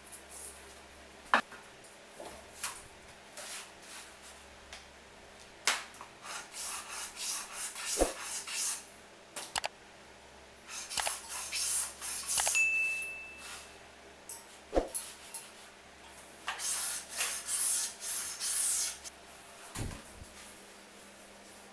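A thin plastic laminate sheet scraping and rubbing in repeated short rasps as it is handled and worked along its edge, with a few sharp knocks as it or the board is set down.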